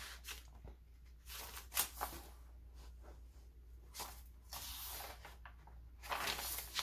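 Paper pages of a handmade journal rustling and swishing in short bursts as they are handled and a page is turned.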